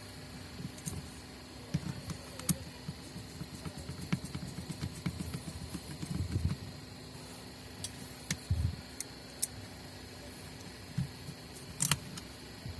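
Small clicks, taps and low knocks of hands handling the sanding machine's parts and wiring during reassembly, with a few sharper clicks scattered through.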